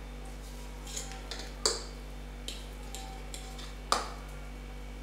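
A handful of separate clicks and knocks, the sharpest about two seconds in and near the end, as a spoon taps and scrapes against a metal pot and bowl while thick porridge (genfo) is scooped out. A steady low hum runs underneath.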